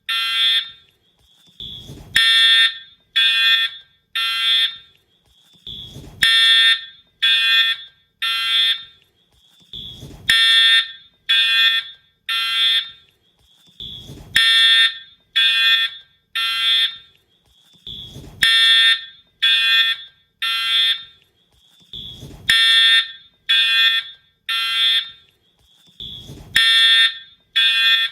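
Wheelock fire alarm horn/strobe sounding the temporal-three evacuation pattern: three buzzy half-second horn blasts about a second apart, repeating every four seconds. A short low thump comes just before each group of three.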